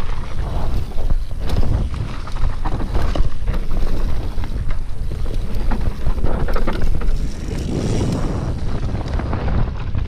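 Wind buffeting an action camera's microphone on a moving mountain bike, over the rattle and knocks of a Diamondback hardtail riding rough singletrack, with frequent short clicks and clatters from the bike.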